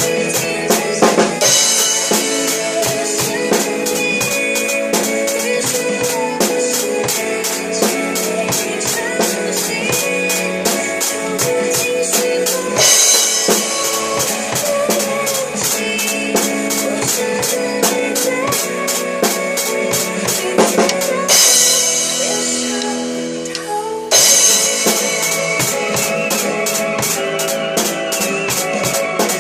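A drum kit played with a steady hi-hat beat, bass drum and snare over a pop ballad backing track. About 21 seconds in, a cymbal crash rings and fades while the beat drops out, and the full groove comes back about three seconds later.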